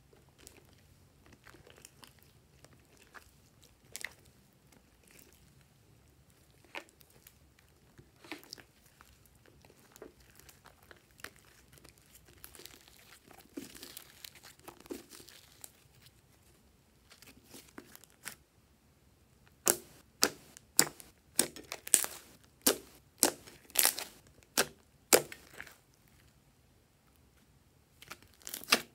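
Thick slime being kneaded, stretched and folded by hand in a glass dish: soft squishing and faint crackling at first, then, about two-thirds of the way in, a run of loud sharp pops and clicks about two a second as trapped air bursts from the folded slime.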